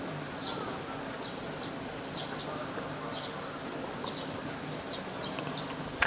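A small bird calling in short, high, down-slurred chirps, about two a second and irregularly spaced, over a faint steady hum.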